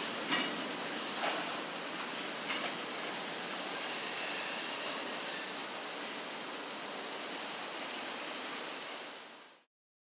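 Freight cars rolling slowly away along the track: a steady rushing noise with a few clanks in the first three seconds. The sound fades out near the end.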